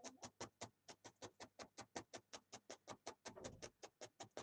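A felting needle repeatedly stabbed through wool fibres, a steady run of soft, quick pokes at about seven a second as the wool is felted down.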